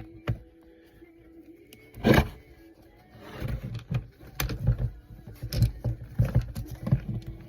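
Hand work on a scrapped fan's metal parts: a sharp clunk about two seconds in, then a run of irregular clanks and rattles from about three seconds on as pieces are pulled apart and handled.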